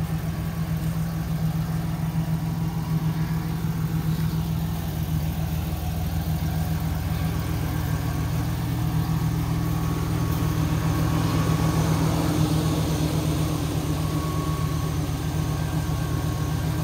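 Chevy Silverado pickup's engine running steadily, an even low hum.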